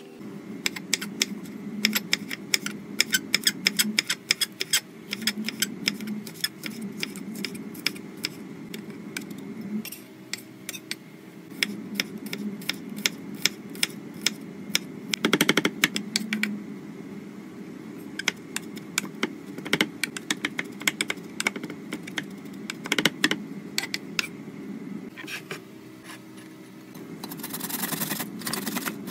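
Kitchen knife chopping vegetables on a wooden cutting board: runs of quick sharp taps with short pauses, first through chopped green chili peppers, then slicing garlic cloves. Near the end comes the rasping scrape of a tomato rubbed on a metal box grater.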